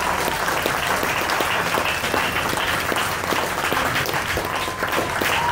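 Audience of families applauding and clapping steadily in the open air, the ovation for cadets just declared graduated. A long, thin high tone comes in over the clapping near the end.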